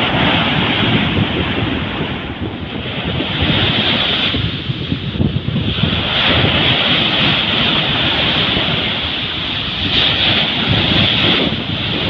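Sea surf breaking and washing up a sandy beach in foam, the rush of water swelling and easing every few seconds, with wind buffeting the microphone.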